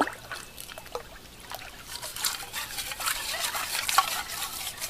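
River water sloshing and trickling as a stainless steel container is scrubbed with sand and rinsed in the shallows, with many small splashes and gritty scrapes; it gets busier and louder about halfway through.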